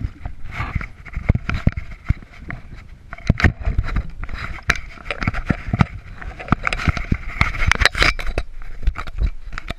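Handling noise on a covered action camera: its microphone is rubbed and scraped, with many sharp knocks and clicks.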